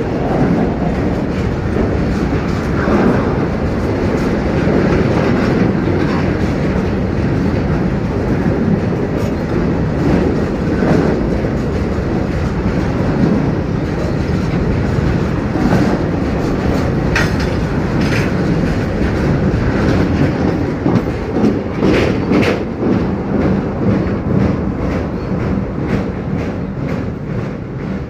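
Freight train of open steel wagons rolling past close by: a steady rumble with the clickety-clack of wheels over rail joints. The clicks grow sharper and more frequent through the second half.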